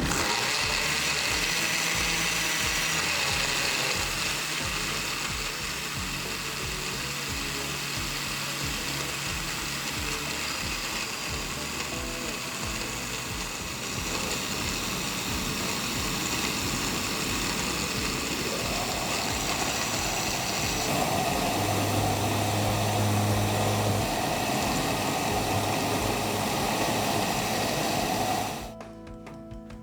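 Countertop blender running on a carrot bread batter for nearly half a minute. Its motor tone changes about two-thirds of the way through, and it switches off abruptly just before the end.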